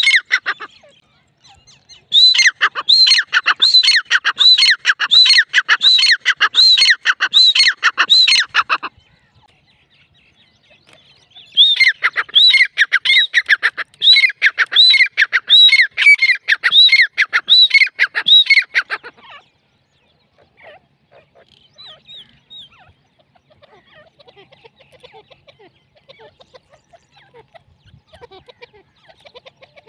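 Grey francolin calling: a loud series of rapidly repeated ringing notes, about two a second, in two bouts of several seconds each, followed by only faint scattered sounds.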